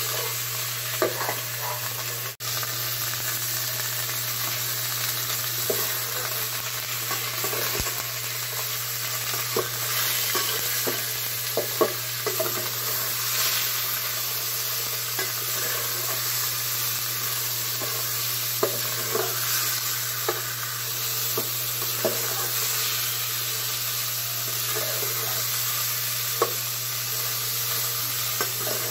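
Pork pieces sizzling as they are browned in a large metal pot, with a metal spoon scraping and clinking against the pot at scattered moments as the meat is stirred.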